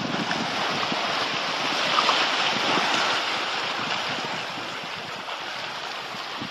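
Sea surf washing in over a rocky, tide-pooled shore, with wind on the microphone; the wash swells about two seconds in and then eases off.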